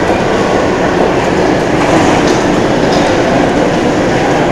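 Steady, dense hubbub of a big-city crossing: a large crowd and traffic blending into one continuous roar-like din with no single event standing out.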